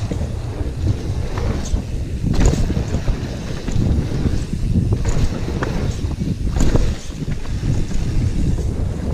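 Wind buffeting the microphone over the rumble and rattle of an Orbea Rallon enduro mountain bike riding a rough bike-park trail. Sharp clacks come every second or so as it goes over bumps.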